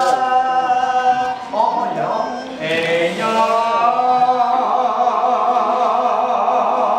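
Men singing a slow Hmong song, holding long notes that glide slowly from one pitch to the next, with a brief break before a long held note that starts a little past the middle.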